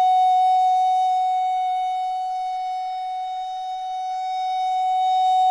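Wooden Baroque-model soprano (descant) recorder holding one long, steady F sharp, fingered thumb, 1, 2, 3, 5, 6. The note eases off slightly in the middle and swells again toward the end.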